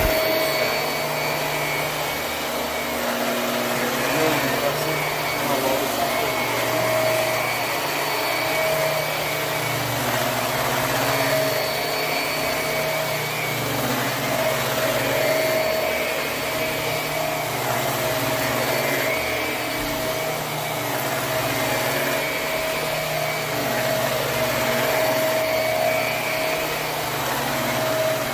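Hoover High Performance Swivel upright vacuum running steadily on carpet, with a constant motor whine; the sound swells and eases a little every few seconds as it is pushed back and forth.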